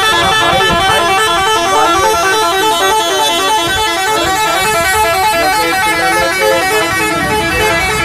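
Indonesian bus 'telolet' horn, a multi-tone musical horn, playing a loud, quick tune of stepped notes without a break.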